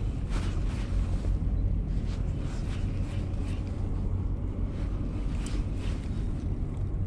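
Wind buffeting the microphone in a steady low rumble, with a few faint short ticks now and then.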